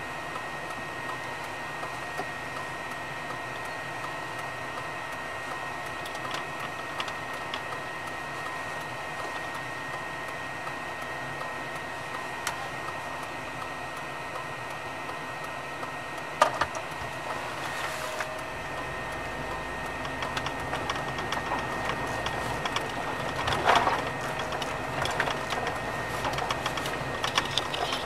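Steady mechanical hum with a constant high whine, as heard inside a vehicle, with a sharp knock a little past halfway and another cluster of knocks near the end; a low rumble comes in and the sound grows louder in the last third.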